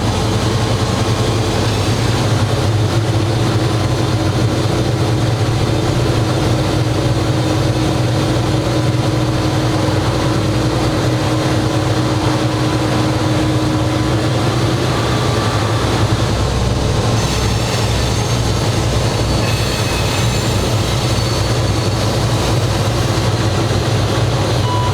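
GE 80-ton diesel switcher locomotive running steadily under way, heard from inside the cab: a constant low engine hum with rail and running noise over it.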